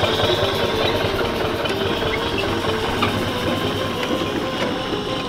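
4-inch scale Burrell steam traction engine running as it drives along, with a steady rapid beat.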